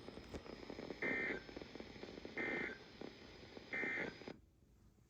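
Emergency Alert System end-of-message tones: three short bursts of two-tone digital data squawk, about 1.4 seconds apart, over background hiss. The hiss cuts off near the end, as the broadcast audio drops.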